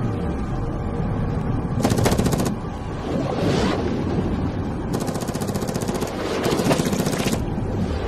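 Muffled underwater rumble in a film sound mix, broken by three bursts of rapid automatic gunfire: one about two seconds in, then two close together from about five to seven seconds.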